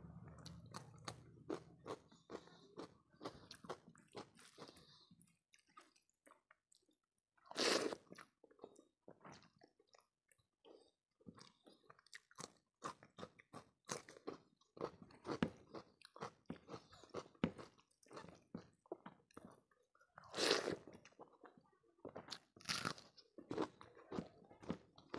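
Close-miked chewing of raw cucumber slices: a steady run of small wet crunches and mouth clicks, with three louder crunching bites, about 8 seconds in, about 20 seconds in and near the end.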